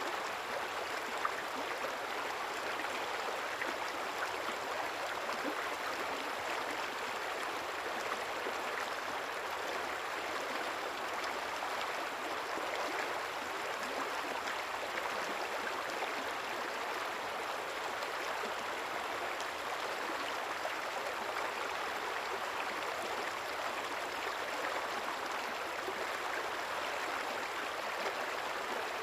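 River water flowing and burbling steadily in a continuous even rush.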